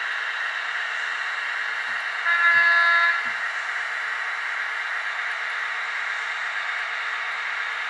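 A model diesel locomotive's sound-decoder horn gives one short blast, under a second long, about two seconds in. Two or three soft low knocks fall around it, over a steady hiss.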